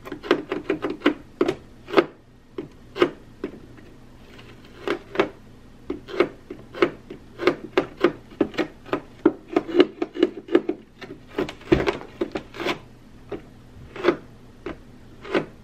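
Fingertips repeatedly pressing into and pulling off tacky sticker residue on a plastic sewing machine casing: a long irregular run of short sticky taps and pops, some in quick clusters.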